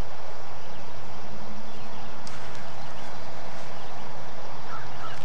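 Open-air ambience at a golf driving range: a steady noisy background with a low steady hum, a faint sharp click about two seconds in, and short repeated bird calls near the end.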